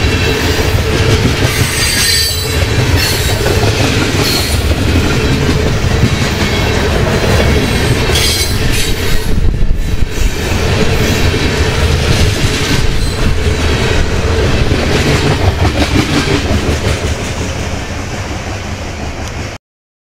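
Freight train of tank cars rolling past close by near track speed: steady heavy wheel rumble and rail clatter, with a few brief high wheel squeals. It cuts off suddenly near the end.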